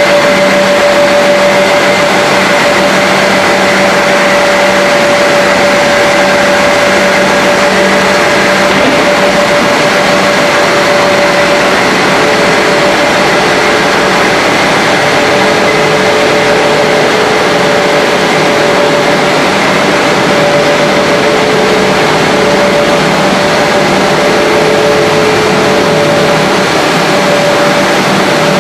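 HDPE pipe extrusion line running: a steady machine drone with a constant noisy hiss and a few held tones, unchanging in level.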